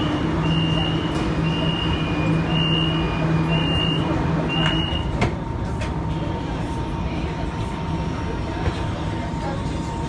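Metro train door-closing warning chime: short high beeps alternating between two pitches for about five seconds, then the doors shut with a sharp clunk. A low steady hum of the stationary train runs underneath.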